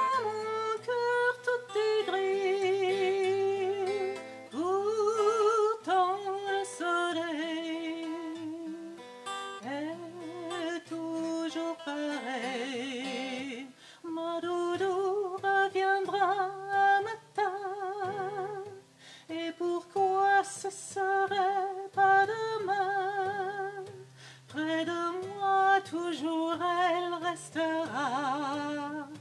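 A woman singing a French chanson with marked vibrato, accompanying herself on an acoustic guitar.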